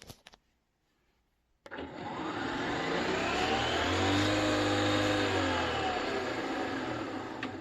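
A few clicks, then, about a second and a half in, a Nespresso Vertuo Next starts brewing. Its motor spins the capsule up in a loud whir that rises in pitch and then falls back.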